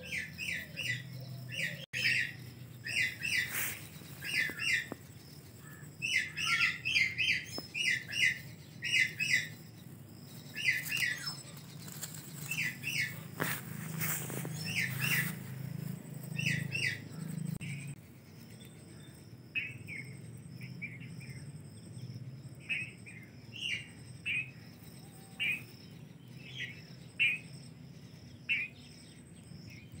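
Birds chirping: short high chirps in quick clusters of two to four, repeated throughout, with a faint steady insect buzz underneath in the second half.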